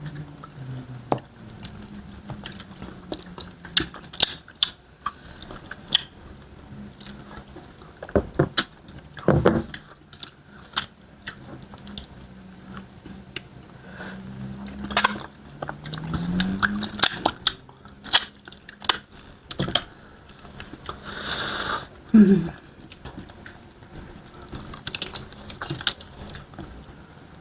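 Close-miked mukbang eating of starch fufu and banga soup with smoked chicken: steady wet chewing and biting with frequent sharp mouth clicks and some crunches. A short voiced sound with a rising pitch stands out about two-thirds of the way through.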